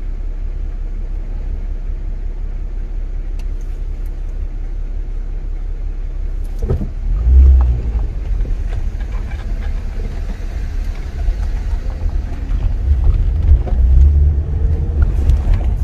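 A car on the move: a steady low rumble of engine and road. There is a brief louder surge about seven seconds in, and the rumble grows louder over the last few seconds.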